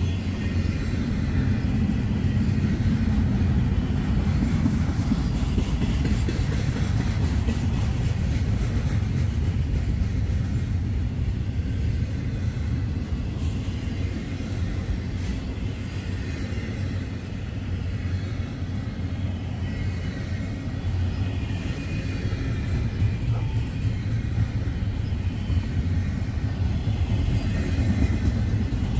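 Norfolk Southern freight train cars rolling past, a steady low rumble of wheels on the rails.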